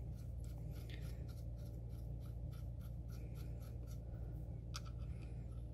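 Faint, rapid small ticks and light scraping of small metal parts being threaded together by hand: a decapping die's lock nut being run onto the decapping rod. A steady low hum sits underneath.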